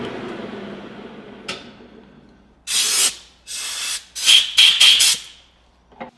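A metal lathe switched off, its motor and spindle spinning down, followed by a click and then several short hissing blasts of compressed air, a few in quick succession towards the end, and a last click.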